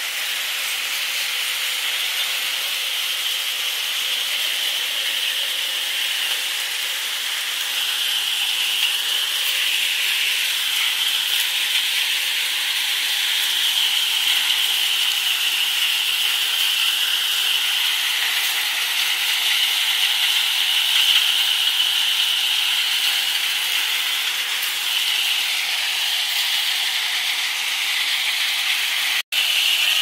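Tractor-driven multicrop thresher running while threshing maize cobs: a steady hissing rush with hardly any low rumble.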